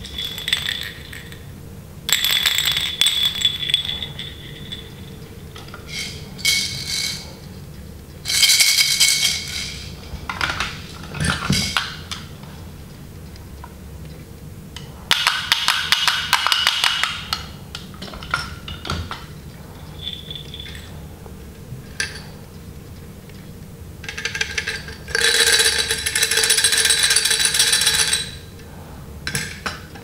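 Plastic baby rattles shaken one after another in short bursts of rattling, each from under a second to about three seconds long, with pauses between. Some bursts carry a bright ringing tone, and a few light plastic clicks and knocks come as the toys are picked up and set down.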